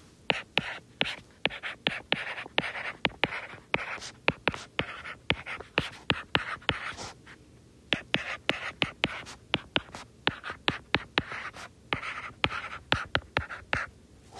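Stylus writing on a tablet screen: scratchy pen strokes broken by many sharp taps as each stroke begins and ends, with a couple of brief pauses between numbers.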